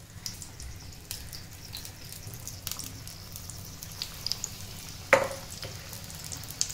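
Besan-battered stuffed green chillies (mirchi vada) deep-frying in hot oil: a steady sizzle with scattered small pops and crackles. A single sharp click about five seconds in.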